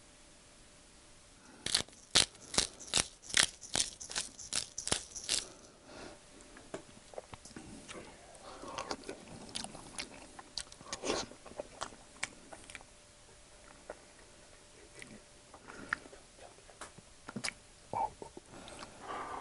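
Grinder cap on a bottle of whole black peppercorns being worked over the eggs: about a dozen crisp crunching clicks, about three a second. After that come quieter scrapes of a wooden spoon through scrambled eggs and eating sounds.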